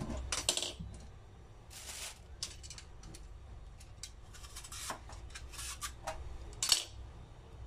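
Vegetable peeler scraping the skin off a lotus root in short, irregular strokes, with a sharper click about two thirds of a second in and another near the end.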